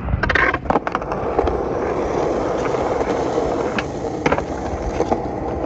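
Skateboard wheels rolling on concrete with a steady rumble, after a few clacks near the start as the board is dropped and stepped on. About four seconds in come a sharp pop and clack as the rider ollies up onto a low metal rail.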